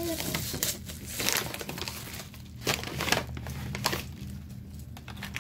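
Small clear plastic packet crinkling as it is handled, in irregular bursts of rustling.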